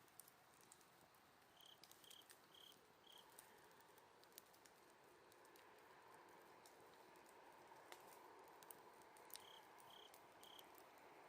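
Faint autumn insect chirping in short high pulses, about two a second, a run of four near the start and three near the end, over the soft hiss and scattered small crackles and snaps of a wood campfire.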